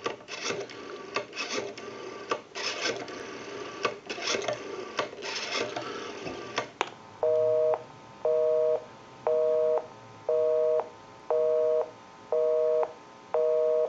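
Rotary dial of a Western Electric 500 desk telephone being wound round and spinning back for several digits, with clicking and rubbing. About seven seconds in, a busy signal starts: a two-tone beep about half a second long, once a second, showing the dialled line is engaged.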